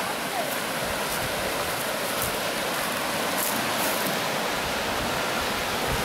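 Swift river rushing over rocks: a steady, even rush of churning white water.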